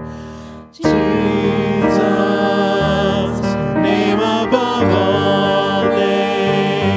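Church worship music with singing and instruments; the music dips briefly and starts again at full level about a second in.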